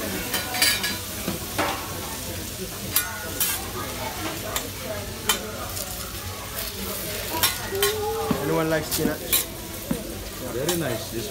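Leafy greens sizzling on a hot teppanyaki griddle, with many sharp clacks and scrapes of the chef's metal spatulas against the steel plate.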